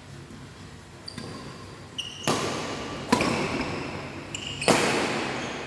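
Badminton rally on an indoor court: three sharp racket strikes on the shuttlecock, the first about two seconds in and the others in the following seconds, each ringing in the hall, with short high shoe squeaks on the court floor just before the first and last strikes.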